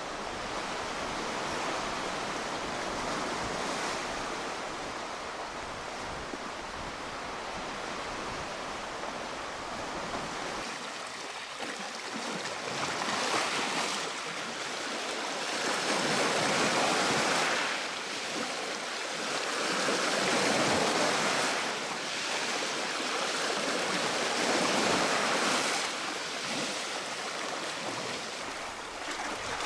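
Sea waves washing onto a shore. In the second half the surf swells and falls away about every four seconds.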